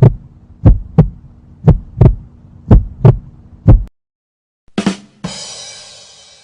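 Heartbeat sound effect: five lub-dub pairs of low thumps, about one beat a second, over a steady low hum. Near the end a short hit is followed by a hissy sound that fades out.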